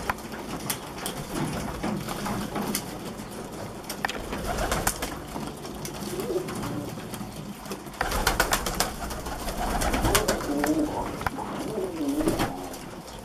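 Domestic pigeons cooing while they feed, the cooing heavier in the second half, over many quick sharp clicks of beaks pecking at chopped grass in a feeding tray.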